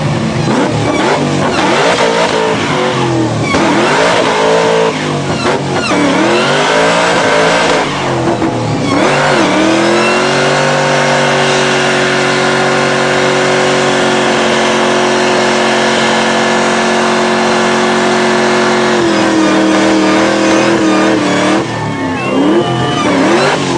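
NASCAR Cup car's V8 engine revving hard during a burnout, its pitch swinging up and down. About ten seconds in it holds a steady high rev for roughly nine seconds, dips a little, then revs up and down again near the end.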